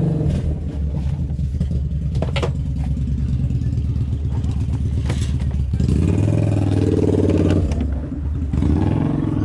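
Volkswagen bus engine running, its note rising for a couple of seconds about six seconds in as it speeds up. A couple of sharp clicks sound over it.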